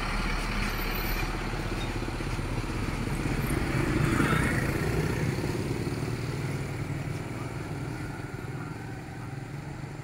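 Truck engine running as the truck pulls away down the road, with motorcycles riding alongside. The noise swells about four seconds in, then slowly fades as the truck moves off.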